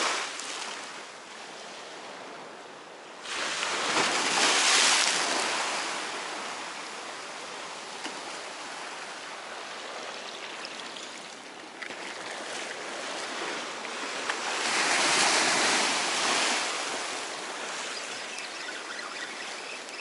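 Black Sea surf on the shore, a steady wash of sea. Waves break and swell loud twice: once about three seconds in, and again from about twelve seconds, peaking a few seconds later each time.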